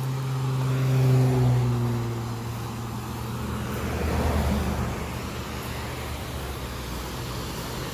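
Vehicles passing on the highway. The first goes by about a second in, its engine pitch falling as it passes; a second, lower rumble swells and fades around four seconds in. Beneath both runs the steady rush of the waterfall.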